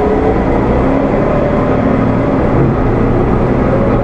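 Cummins ISL9 inline-six diesel engine and Allison B400R transmission of a 2015 Gillig Low Floor transit bus, running steadily as the bus drives along.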